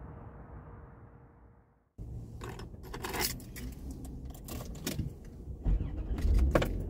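Faint steady outdoor noise fades out over the first two seconds. Then it cuts suddenly to a run of metallic jingles and clicks of keys being handled inside a vehicle's cab, with a low thump or two near the end.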